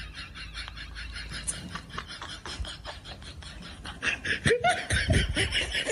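A person laughing in rapid, breathy bursts, about five or six a second. It grows louder, with lower, falling laughs about four and a half seconds in, and cuts off suddenly at the end.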